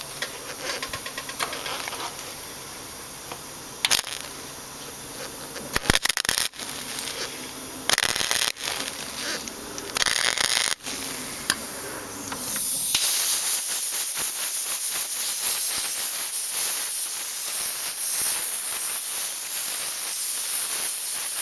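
A few short bursts of welding on a car's sheet-metal patch panel, then, from about thirteen seconds in, a steady hiss of compressed air blown onto the fresh weld to cool it and keep the panel from distorting.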